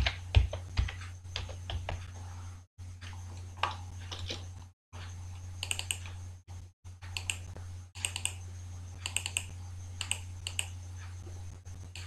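Typing on a computer keyboard in short runs of keystrokes, over a steady low hum.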